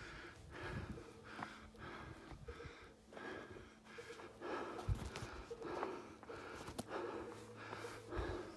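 A hiker's heavy breathing while climbing: quick, rhythmic breaths that follow one another about every half-second to second, with a few faint clicks.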